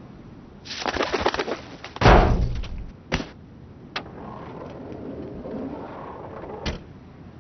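A pigeon's wings flapping in a quick flurry, then a loud thump as the Ford SportKa's bonnet springs open, followed by a few sharp single knocks.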